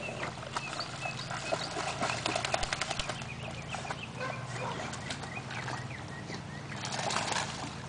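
Light splashing and crackle from two dogs paddling through the water, with short bird chirps in the background over a faint steady low hum.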